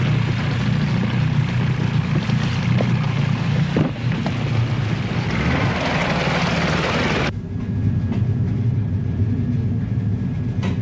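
Steady low drone of a boat's engine under a rushing hiss of wind and sea. About seven seconds in, the hiss cuts off suddenly and the engine hum carries on alone.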